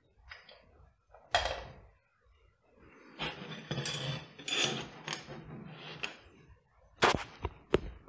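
Handling noise as a metal pinning tray is brought onto a wooden tabletop: a sharp knock, then a few seconds of scraping as it slides on the wood, then three sharp metallic clacks near the end as it is set down.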